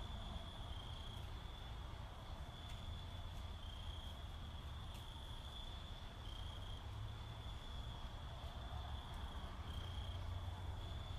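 Steady high-pitched insect trill over a low background hum.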